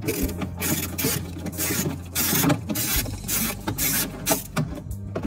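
Irregular scraping and rubbing, a string of short rasping strokes of uneven length and spacing, over a low steady hum.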